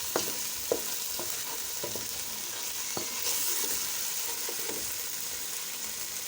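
Chopped tomatoes and tomato paste frying with onions in oil in a pot, sizzling steadily while a spoon stirs and knocks against the pot several times in the first three seconds. The sizzle grows louder about three seconds in.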